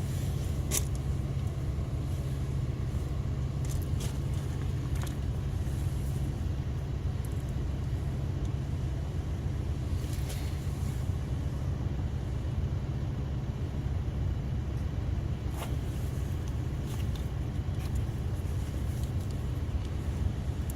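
A vehicle engine running at a steady idle, a constant low rumble, with a few faint clicks and taps scattered over it.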